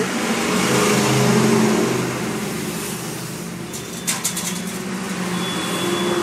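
A motor vehicle engine running nearby, its steady hum swelling about a second in and then easing off. A few sharp clicks come about four seconds in.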